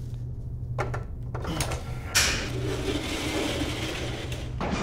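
Old lift's machinery: a steady low hum with a click about a second in, then a mechanical whirr that starts suddenly about two seconds in and cuts off just before the end.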